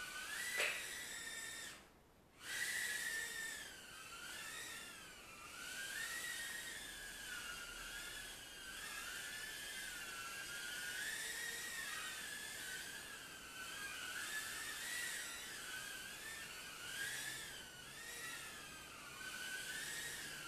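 Furibee F36 micro quadcopter's brushed motors and tiny propellers whining, the pitch wavering up and down as the throttle and corrections change. About half a second in there is a sharp knock. Near two seconds the motors cut out briefly, then spin back up with a rising whine.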